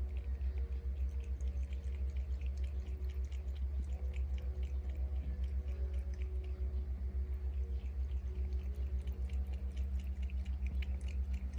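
Ragdoll cat lapping water in a quick, even rhythm of about three to four laps a second, each lap a soft wet tick, over a low steady hum.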